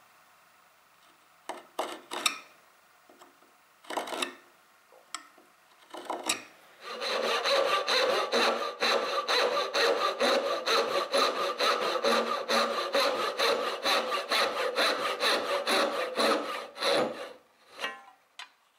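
A few short scrapes of a marking knife drawn along a square. Then, about seven seconds in, comes a long run of quick, even hand-saw strokes cutting down the dovetail tails in the end of a wooden board. The strokes taper off near the end.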